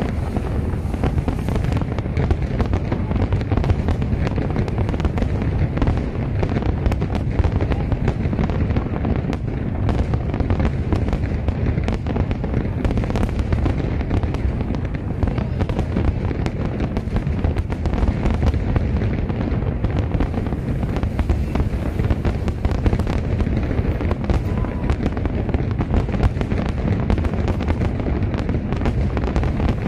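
Aerial fireworks barrage: many shells bursting in quick, overlapping succession, a steady, unbroken rumble of deep booms with sharp cracks and crackle on top.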